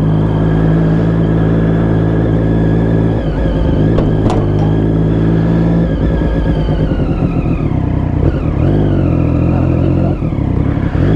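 Triumph Daytona 675 motorcycle engine running at low revs while the bike is ridden slowly, its note changing a few times with the throttle. There is one sharp knock about four seconds in.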